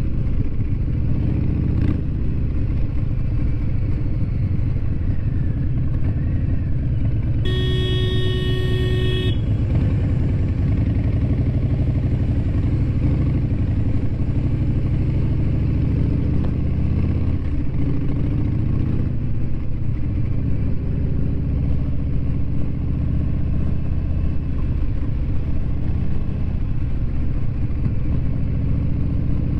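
Harley-Davidson V-twin motorcycle engine running steadily while riding. A vehicle horn sounds once for about two seconds, roughly seven and a half seconds in.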